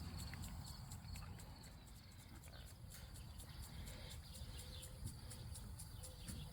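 Faint, quick, evenly spaced ticking, about four or five ticks a second, over a low rumble.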